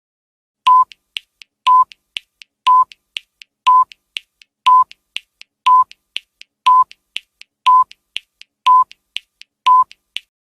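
Electronic countdown sound effect: ten short, identical beeps, one each second, with fainter ticks between them.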